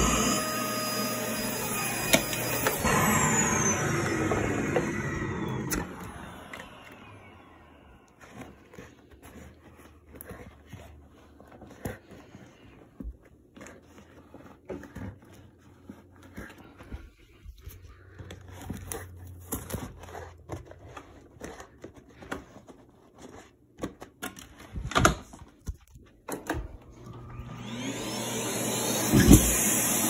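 Prolux Tritan vacuum cleaner running with its hose in a drawer of socks, then its motor winds down and stops over about two seconds. A long quiet stretch of clicks and knocks follows, and near the end the motor spins up and runs again.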